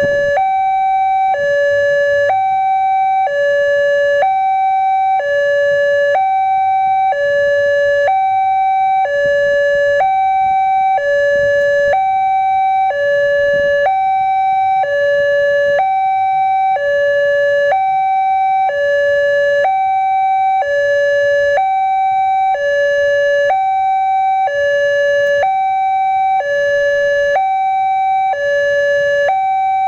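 Railway level-crossing warning siren sounding a two-tone high-low alternation, each tone held about a second and repeating steadily, the signal that a train is approaching.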